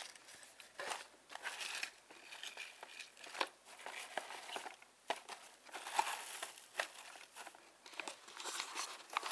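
Crinkle-cut shredded paper filler rustling and crinkling as a hand rummages through it in a cardboard box, coming and going irregularly.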